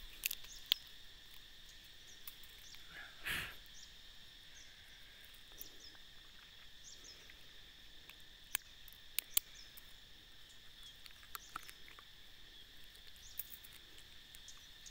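Rural outdoor ambience: a steady high-pitched insect drone with scattered short bird chirps. There is a brief rustling burst about three seconds in and a few sharp clicks near the middle.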